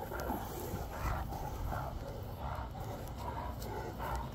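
Two Great Danes play-fighting, giving a run of short vocal sounds, two or three a second.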